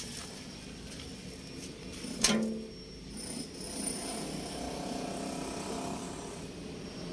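A sheet-metal access door on a BOMAG compactor's body clanks once as it is pulled open by hand, a sharp metal knock with a short ring about two seconds in.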